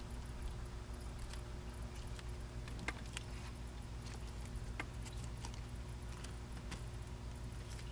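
Baby red-footed tortoise biting and tearing at lettuce leaves: faint, irregular crisp clicks and crunches, some seconds apart, over a steady low hum.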